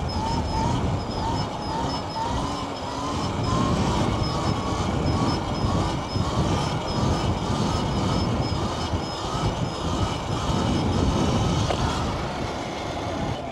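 Wind buffeting the microphone of a rider on a moving electric dirt bike, a heavy, gusting low rumble. A faint high chirp repeats about twice a second over it.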